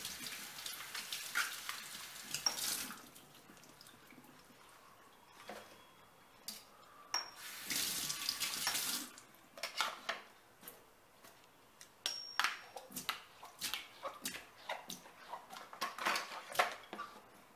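Kitchen tap running into a stainless steel sink, stopping after about three seconds and running again briefly around eight seconds in. In between and afterwards, scattered light clicks and knocks of things being handled at the sink.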